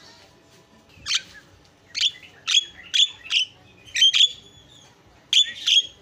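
Javan myna calling: a run of about ten short, sharp, high-pitched chirps in loose clusters after a quiet first second.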